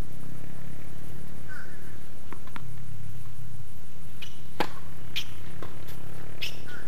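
Tennis ball strikes on a hard court: two light pops, then a sharp racket crack on the serve a little past halfway, the loudest sound, followed by several more pops of ball on racket and court as the point gets under way. A steady low hum runs underneath.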